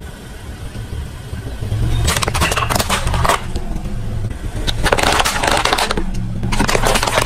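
Car tyre rolling over and crushing plastic objects, with three spells of dense cracking and crunching about two seconds in, about five seconds in, and near the end, over the low steady sound of the car's engine running.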